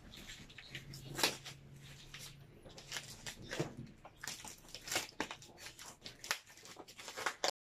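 A shipping package being opened by hand: irregular crinkles, rips and clicks of tape and plastic wrapping, stopping abruptly near the end.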